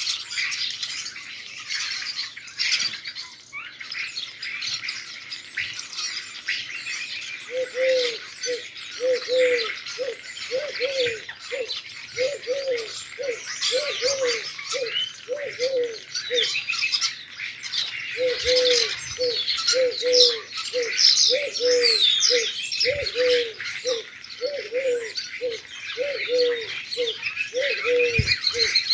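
Many small songbirds chirping together in a dense, busy chorus. From about eight seconds in, a dove coos underneath in a steady run of low notes, about two a second, with a short break near the middle.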